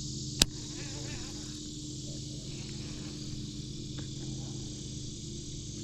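Night insects, crickets, calling in a steady high chorus, over a steady low hum, with one sharp click about half a second in.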